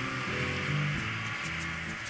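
Background music: a melody of held notes that change about every half second.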